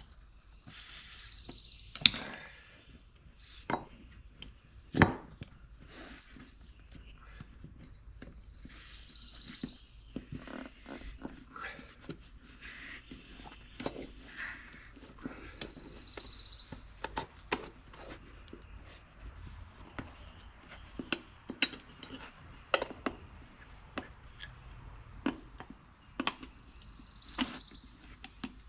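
Irregular sharp clinks and knocks of a screwdriver prying a small 4.10/3.50-4 wheelbarrow tire off its rim, with rubber scuffing in between; the two loudest knocks come about 2 and 5 seconds in. A faint steady high whine runs underneath.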